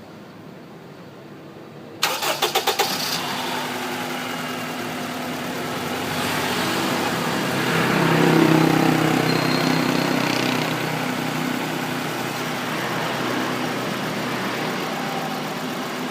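A 2003 Honda Accord's K20 four-cylinder engine is cranked by the starter about two seconds in, catches after about a second, and runs, getting louder around eight seconds in before settling to idle. It is misfiring on cylinder 3, a fault that a new coil and spark plug have not cured.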